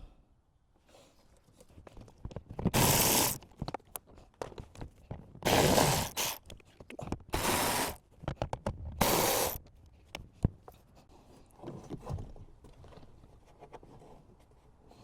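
Socket ratchet wrench with a 10 mm socket being worked on fasteners: four rasping bursts of ratchet clicking, each under a second and about two seconds apart, amid small clicks and knocks of tool handling.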